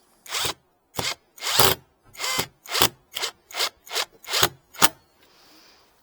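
Rhythmic scraping strokes on wood, about ten of them, coming faster toward the end and stopping about five seconds in.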